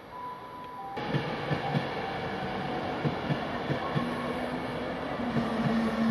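A train running through the station, its wheels clacking over rail joints in a quick, regular rhythm. The sound gets louder suddenly about a second in, and a steady low hum joins in about four seconds in.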